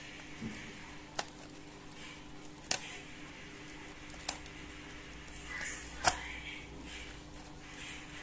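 Clear plastic wrapper being peeled and crinkled off a cardboard box of oil pastels: four sharp snaps about a second and a half apart, with soft crackling from the plastic in the second half.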